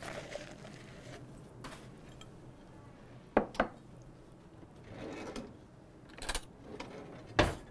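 Kitchen handling sounds: a glass measuring cup set down on a wooden counter with two light knocks about halfway through, a drawer sliding open, then a couple more knocks, the loudest near the end.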